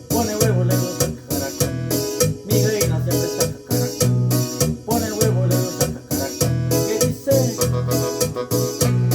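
Yamaha PSR-E463 portable keyboard playing a solo melody over a steady, repeating bass line and drum rhythm.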